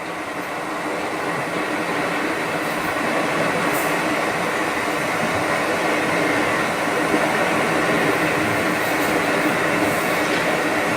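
Steady droning hum with a dense rushing noise, like the inside of a running train, that grows gradually louder. A few faint high ticks sit on top.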